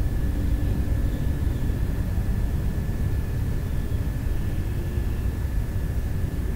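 Steady low rumble of background noise with a thin, steady high whine running through it.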